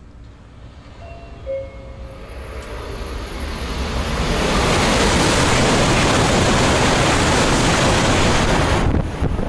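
E5-series Shinkansen passing through the station at high speed without stopping. A rushing noise swells over a few seconds as the train approaches. It holds loud and steady while the cars stream past, then cuts off abruptly about nine seconds in as the tail clears.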